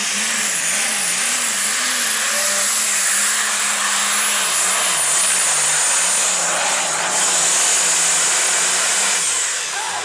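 Heavy super stock diesel pulling tractor running flat out under load, a loud steady roar with a high whine riding on top. The whine drops away near the end.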